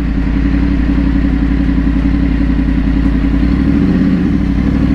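Yamaha R1 sport bike's inline-four engine running at a low, steady pace as the bike slows to pull over, with a brief change in the note about three and a half seconds in.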